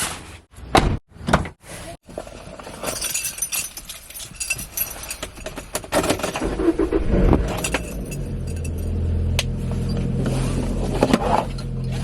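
Clunks, clicks and rattling, then a car engine running steadily from about eight seconds in.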